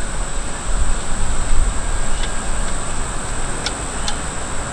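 Steady rushing background noise with a low rumble and a constant high-pitched insect drone. A couple of faint small clicks near the end come from the alternator nuts being spun off by hand.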